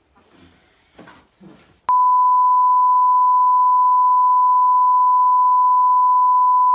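Test tone of the kind played with TV colour bars: one steady, loud, pure beep that cuts in abruptly about two seconds in and holds unchanged, signalling the end of the programme. Faint room sound comes before it.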